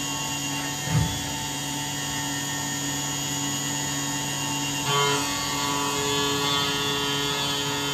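CNC milling machine cutting an aluminium part under flood coolant: the spindle and end mill run with a steady mix of whining tones. There is a short low thump about a second in, and the cutting sound shifts about five seconds in.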